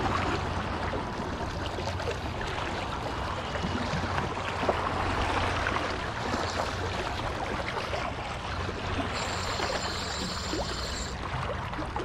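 Water lapping and trickling close at hand, a dense crackly wash of small splashes, over a steady low rumble.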